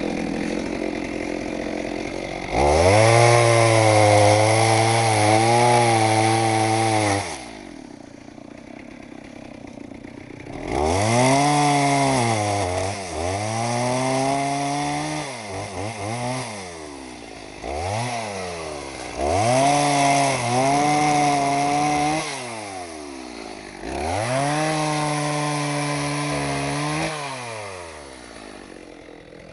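Two-stroke STIHL chainsaw repeatedly revved up to full throttle and held there, its pitch wavering under load as it cuts wood, then dropping back to idle; this happens about six times, some runs several seconds long and one very brief.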